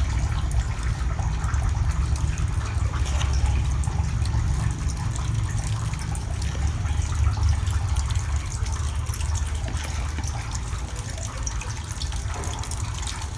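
Water running steadily into a shallow tank of eels, a continuous gushing flow with no breaks.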